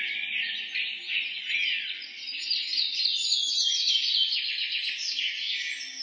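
A chorus of small birds chirping and twittering, many rapid overlapping chirps at once.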